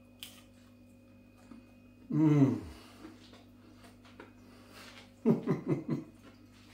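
A man with a mouthful of pie making appreciative closed-mouth sounds: one long 'mmm' falling in pitch about two seconds in, then a quick run of about five short hums near the end.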